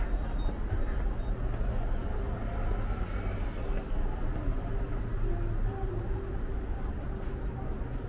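Steady city street noise: a low rumble of traffic, with faint snatches of voices over it.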